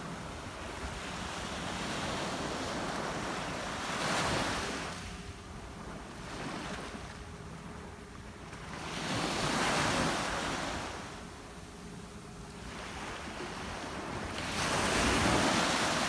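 Small waves breaking and washing up a sandy beach: three rushes of surf, about a second in after four seconds, near the middle and near the end, with a steady wash of surf between them.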